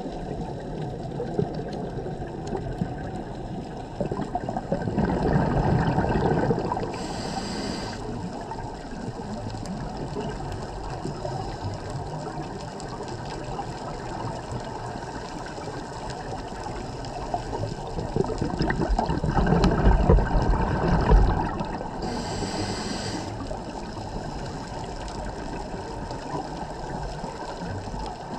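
Underwater ambience picked up by a camera in its waterproof housing: a steady wash of water noise, swelling twice into louder surges of a few seconds each, about a fifth of the way in and again about two-thirds in, each followed by a short high hiss.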